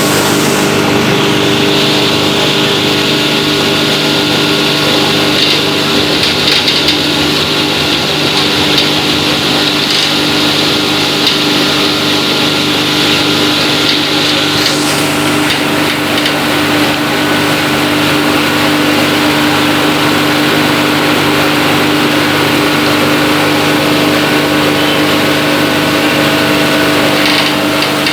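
Wet waste chopper-grinder with rotary blades running with a steady hum. A higher grinding noise, material being chopped, joins about a second in and stops about halfway through.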